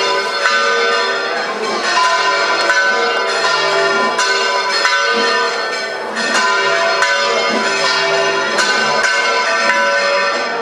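Church bells pealing: several bells struck over and over in quick succession, their tones overlapping continuously.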